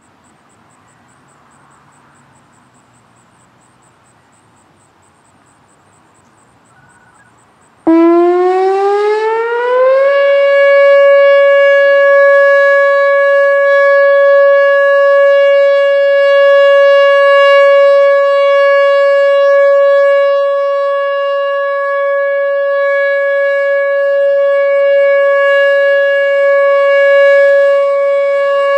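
Whelen Vortex R4 outdoor warning siren sounding its Alert signal. After about eight seconds of quiet background it starts suddenly, winds up in pitch for about two seconds, then holds one loud steady tone, its loudness swelling and easing slightly as the rotator turns.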